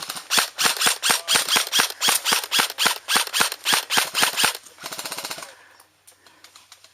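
Airsoft gun firing a rapid string of shots, about five a second for four seconds or so. It is followed by a short, quieter, faster rattle of full-auto airsoft fire.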